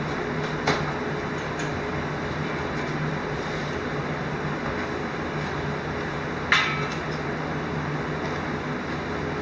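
Steady mechanical hum and hiss, with two sharp metallic clicks, one just under a second in and the other about six and a half seconds in.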